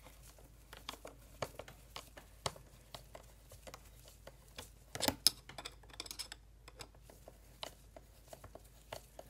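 Light, scattered clicks and scrapes of a screwdriver working the screw of a worm-drive hose clamp on an engine's air-intake duct, with a louder cluster of clicks about five seconds in.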